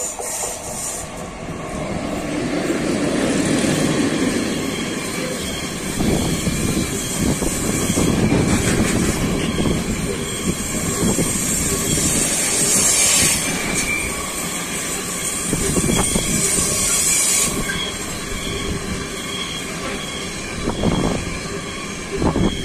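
Electric-hauled freight train rolling past close by: the locomotive goes by, then a long line of freight wagons, wheels knocking over rail joints with a high squeal from the wheels in the middle stretch.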